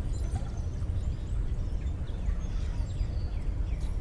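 Steady low outdoor rumble with scattered faint, short bird chirps.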